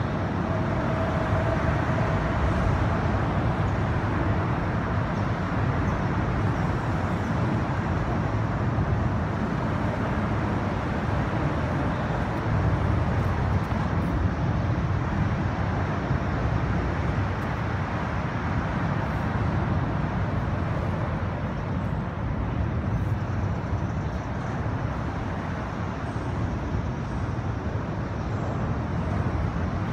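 Steady traffic noise from the elevated highway overhead.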